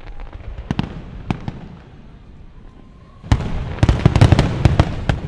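Fireworks sound effect: a few sharp, separate pops in the first second and a half, then a loud, dense volley of bangs and crackles starting about three seconds in.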